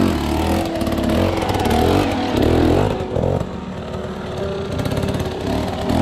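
Dirt bike engines running, with the pitch rising and falling a couple of seconds in as the throttle is worked.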